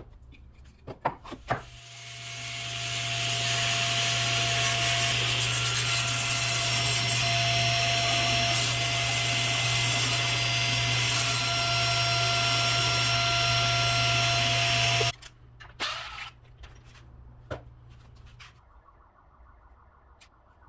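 Table saw blade shaving a square wooden stick round into a dowel inside a box jig: a steady cutting noise with a low hum that comes up over a second or two about two seconds in and cuts off abruptly about three quarters of the way through. After it, a few light knocks of wood being handled.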